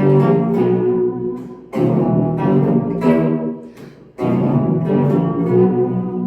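Electric guitar played through an EHX Pitch Fork pitch-shifter set about three octaves down, with a vibe and a delay after it: deep low notes, loud, in phrases that start about every two and a half seconds. The tone is very elephant-like, as if the amp is going to blow up.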